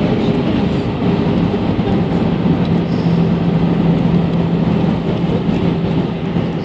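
Cabin noise of an Airbus A319 rolling out on the runway after touchdown, ground spoilers raised. It is a loud, steady rumble of engines, airflow and wheels, with a low hum that grows steadier a few seconds in.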